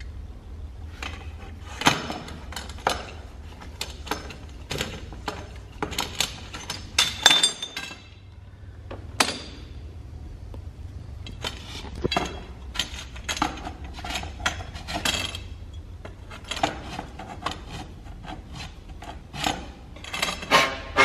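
Irregular clicks, clinks and knocks of hand tools on metal pipe: a wheel-type tube cutter worked around blue aluminium compressed-air pipe, and the cut lengths and fittings handled. A steady low hum runs underneath.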